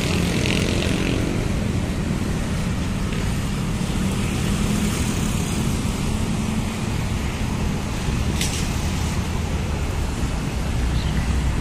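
Steady hum of road traffic, with no single vehicle standing out.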